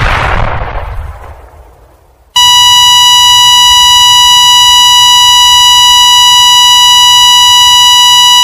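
The tail of an explosion sound effect dies away over about two seconds. About two and a half seconds in, a loud, continuous electronic beep at one steady pitch starts and holds unbroken.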